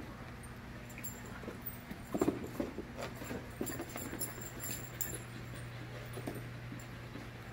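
Two puppies play-wrestling: scuffling and tapping paws on a rubber floor, with a louder scuffle about two seconds in, over a steady low hum.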